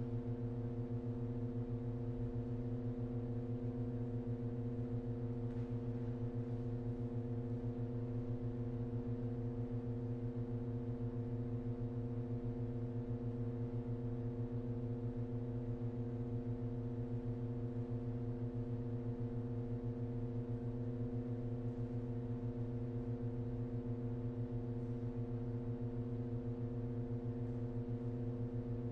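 Pipe organ holding a sustained chord of low and middle pipes at a steady level, with a faint regular wavering in the lowest note.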